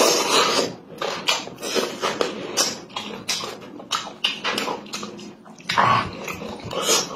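Close-miked eating sounds: wet chewing, lip-smacking and sucking as a man bites meat off a poached whole chicken and tears it apart by hand, in a dense run of short smacks with a louder burst about six seconds in.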